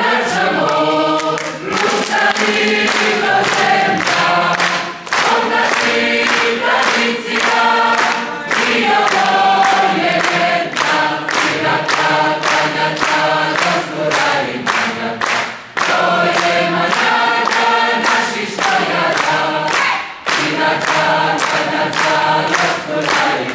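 Large mixed choir of women's and men's voices singing a lively song in parts, over a steady sharp percussive beat of about two to three strikes a second.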